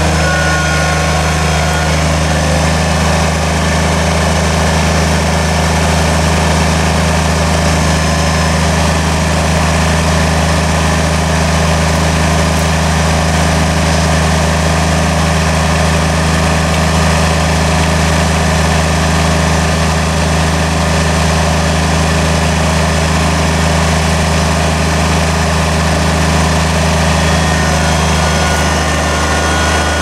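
Kubota BX25 compact tractor's three-cylinder diesel engine running steadily, with no change in pitch.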